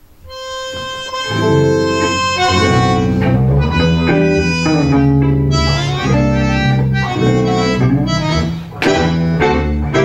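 Bandoneón opens with a single held note, then the tango ensemble comes in with bass and guitar under the bandoneón, playing an instrumental tango passage.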